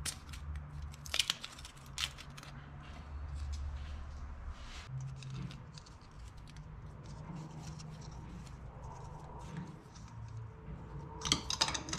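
Small scattered metallic clicks and handling noises as an oil feed line fitting is threaded by hand onto the top of a turbocharger, over a low steady hum.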